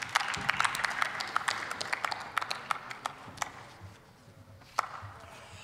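Sparse applause from a few people in a large hall, with many separate claps that thin out after about three and a half seconds.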